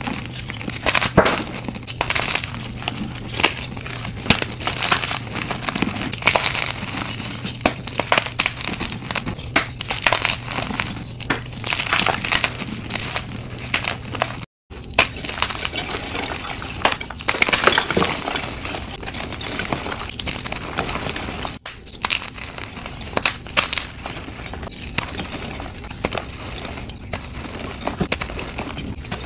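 Dyed chalk blocks and chunks crushed and crumbled by hand, a dense run of crisp crunching and crackling. The sound cuts out for a moment about halfway.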